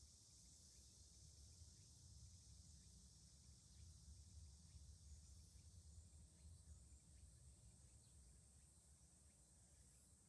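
Near silence: faint outdoor background with a low rumble and faint, very high-pitched pulses repeating slightly more than once a second.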